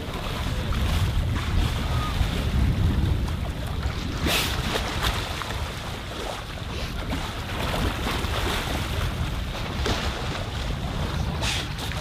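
Wind buffeting the microphone over the wash and slap of choppy sea water alongside a boat, with a couple of sharper splashes about four seconds in and again near the end as fur seals and dolphins break the surface beside the hull.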